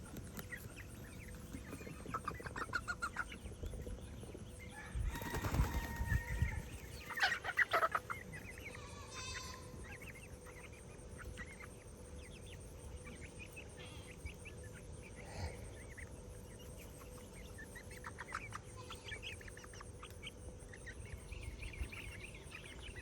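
Chickens clucking in short bursts on and off, with a louder noisy burst about five seconds in.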